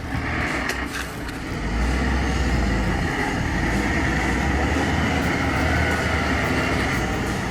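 Heavy vehicle engine running with a steady low rumble, which gets louder about two seconds in and then holds.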